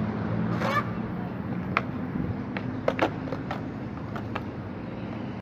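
Skateboard wheels rolling on concrete, with several sharp clacks of the board during a hospital flip attempt, the loudest about three seconds in.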